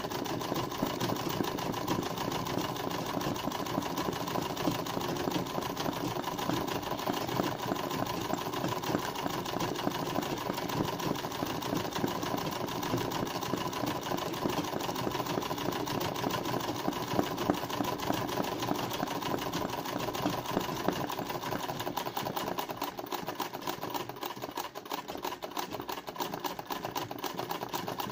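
Black domestic sewing machine stitching continuously at speed in free-motion embroidery, a rapid, even clatter of needle strokes.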